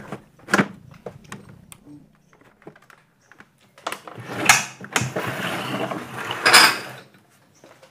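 Handling noise from a CRT television being reassembled: scattered clicks and knocks as its circuit board and cables are fitted back, then a louder rough scraping and rustling about four seconds in that stops about seven seconds in.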